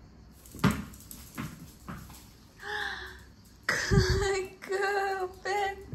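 Several drawn-out, high-pitched wordless vocal notes, with a couple of sharp thumps, one about half a second in and one near four seconds in.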